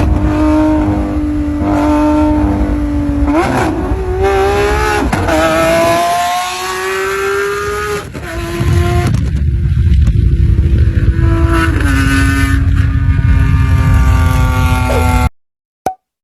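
Lamborghini Aventador's V12 engine accelerating. Its pitch holds steady for about three seconds, then climbs in several steps through the gears, then runs loud and steady until it cuts off abruptly about a second before the end.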